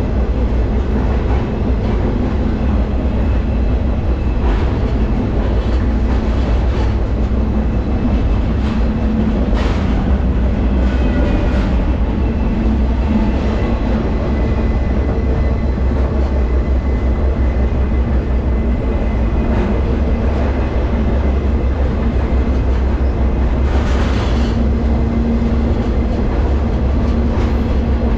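Freight train rolling along, heard from aboard: a steady, heavy low rumble with occasional clanks and a few faint high metallic squeals in the middle.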